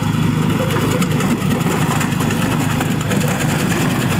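Small engine of a cassava slicing machine running steadily while roots are fed in and chipped.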